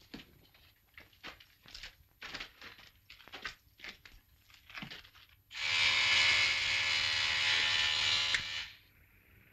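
Footsteps on a hard floor, a string of sharp taps for about five seconds. Then a loud harsh electric buzz with static from a television-intercom receiver starts suddenly, lasts about three seconds and cuts off.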